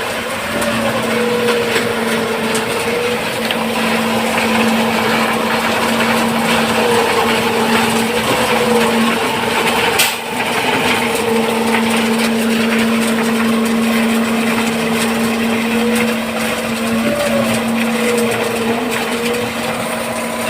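Concrete-pouring machinery running steadily with a constant hum and a higher tone that wavers now and then, plus one sharp click about halfway through.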